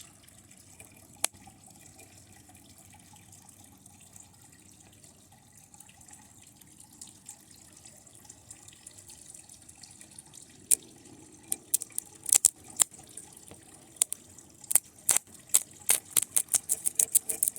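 Sharp crackles and pops from TV circuit-board parts arcing and burning under high current from a lead-acid battery. A faint hiss lies under them for most of the time; the pops start in earnest past the middle and come thick and fast in the last few seconds.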